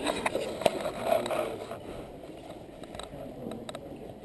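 Indistinct murmur of many people in a large, echoing room, with a few sharp clicks and knocks about halfway through.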